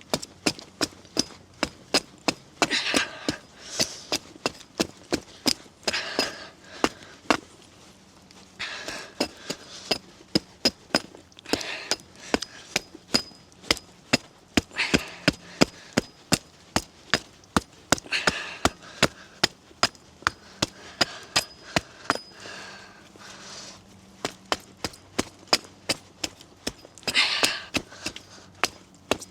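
A hand tool chopping repeatedly into a small piece of wood, sharp knocks about two to three a second, as the wood is cut into a wedge. Now and then a short rasping, crunching burst of wood splitting away breaks in among the strokes.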